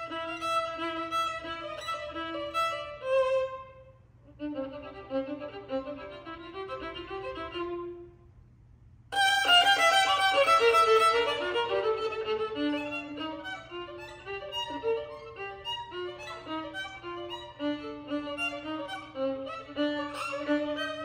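Solo violin played with the bow, unaccompanied: a melodic passage that turns softer about four seconds in, breaks off briefly about eight seconds in, then resumes loud and bright.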